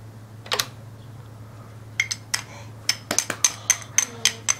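Plastic Duplo bricks clicking and clacking together in a toddler's hands: one click, then, about two seconds in, a quick irregular run of about a dozen sharp clacks.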